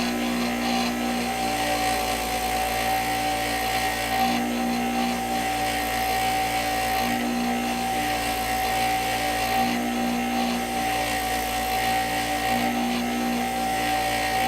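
Bench grinder running steadily with a constant motor whine, its wire wheel brushing rust off steel caliper slide sleeves, the sound swelling a little every few seconds as a part is pressed to the wheel.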